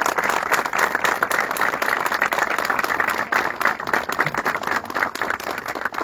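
A crowd applauding steadily, thinning out near the end.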